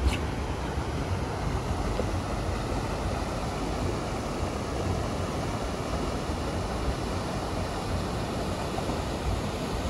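Steady rush of river water pouring over a weir and rocky rapids, with wind rumbling on the microphone.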